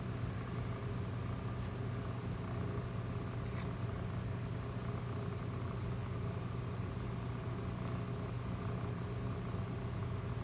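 Steady low mechanical hum, with a faint click about three and a half seconds in.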